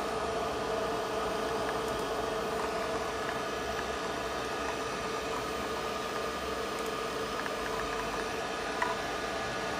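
Steady hum of running equipment, an even noise with a few fixed tones held throughout, and a single short click near the end.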